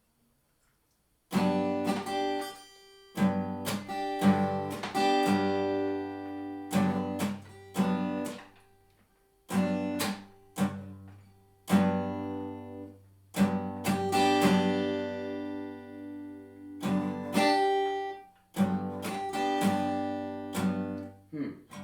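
Acoustic guitar strummed in chords, starting about a second in and breaking off and restarting several times, like a song being worked through haltingly.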